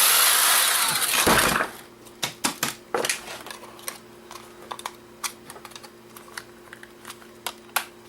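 The plastic housing of a camera's small LCD screen module being pried open. A loud scraping crackle lasts about a second and a half, followed by scattered light clicks and taps.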